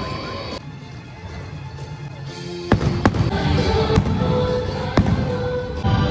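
Music with repeated sharp cracks over a dense low rumble. It drops to a quieter stretch about a second in and comes back abruptly.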